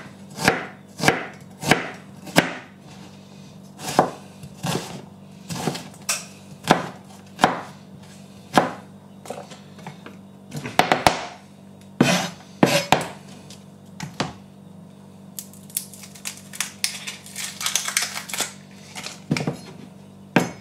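Chef's knife chopping an onion on a plastic chopping board: a run of sharp knocks as the blade strikes the board, roughly one or two a second, with a quicker cluster midway. Near the end the strokes turn softer and hissier.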